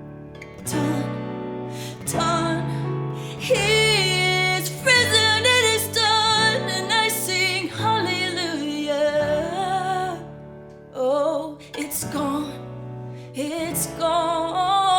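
Worship band music: a woman singing long, wavering held notes over guitar accompaniment.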